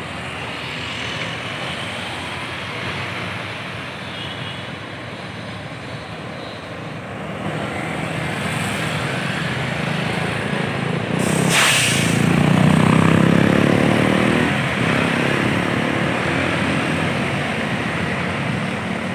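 KAI CC 206 diesel-electric locomotive hauling a train of ballast wagons amid street traffic, its engine growing louder as it draws near and passes close by, with a steady hum at its loudest. A short hiss cuts in about midway.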